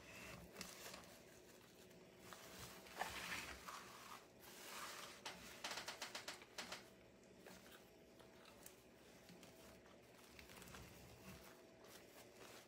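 Faint rustling and crinkling of ribbon being pinched and twisted into a bow loop, in a few short spells, most of them around the middle.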